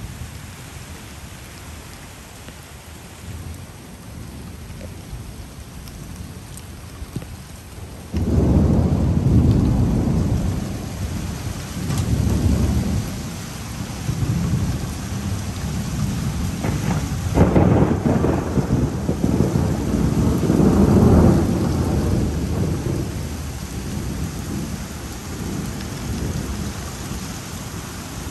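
Heavy rain falling steadily, then about eight seconds in thunder starts suddenly and rolls on as a long low rumble that swells several times before slowly dying away under the rain.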